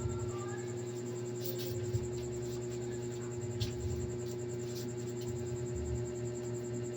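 Small electric fan motor humming steadily, with a few light clicks and taps over it.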